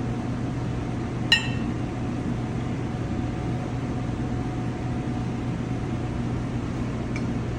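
Steady fan hum of kitchen ventilation, with one sharp, ringing clink of tableware about a second in and a faint tick near the end.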